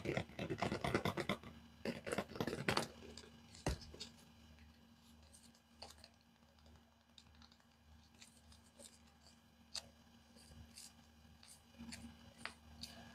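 Paper being handled and opened: dense crinkling and scratching for about the first three seconds, then scattered soft clicks and taps.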